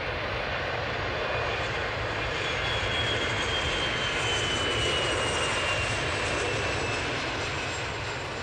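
Cessna Citation X business jet on approach with its landing gear down. Its twin rear-mounted Rolls-Royce AE3007 turbofans make a steady rush with a thin high whine that slowly falls in pitch. The sound is loudest about halfway through, then begins to fade.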